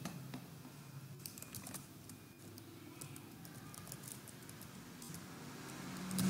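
Faint typing on a computer keyboard: scattered key clicks in a few short runs.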